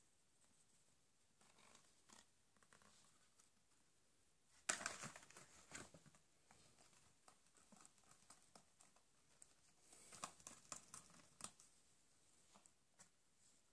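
A lop-eared rabbit gnawing and tearing at a thin cardboard Toblerone box: faint irregular crackling and crunching, with a louder burst about five seconds in and another cluster around ten seconds.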